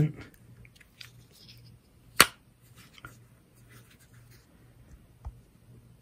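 Brisa Borka 90 lockback pocket knife being folded shut: one sharp click about two seconds in as the blade snaps closed, with a few faint handling clicks around it, over a faint low hum.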